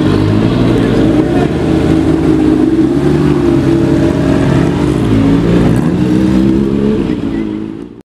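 A Porsche 550 Spyder-style roadster's engine running at low revs as the car creeps past, its pitch drifting gently up and down. The sound cuts off abruptly near the end.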